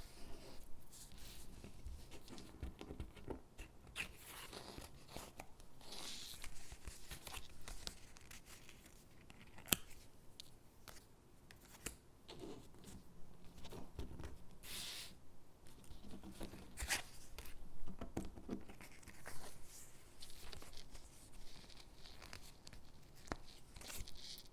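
Stickers being peeled off their backing sheet and pressed onto paper gingerbread cutouts: soft intermittent peeling and paper rustling, with a few sharp taps.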